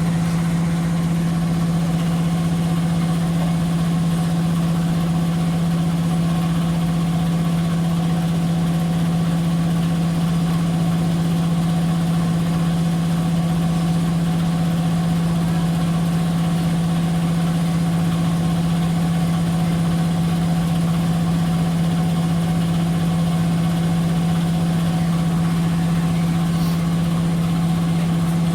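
Electrolux W5300H large-capacity washing machine in its spin cycle: a steady hum with one strong, unchanging low tone.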